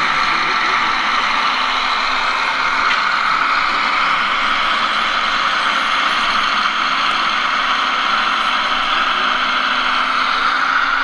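Radio-controlled Liebherr 946 hydraulic excavator model at work, its hydraulics and drive giving a steady mechanical whine and hum as it loads soil into a dumper trailer.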